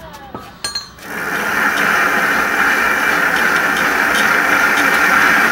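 Mountain bike drivetrain spun by hand through its newly installed square-taper single-chainring crankset. A few clicks as the crank is grabbed, then about a second in a loud, steady mechanical whir of the chain running over the chainring and rear sprockets, which cuts off suddenly at the end.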